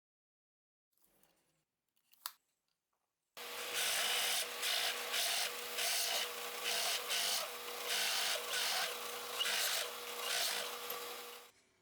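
Wood being rubbed in quick back-and-forth strokes, about two a second, like hand sanding or rasping. It starts about three seconds in and stops abruptly near the end.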